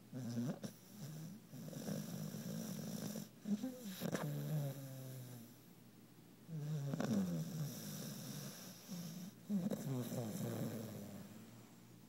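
Brindle pit bull puppy snoring loudly in deep sleep: about four long snores, each lasting a couple of seconds, with short pauses between them.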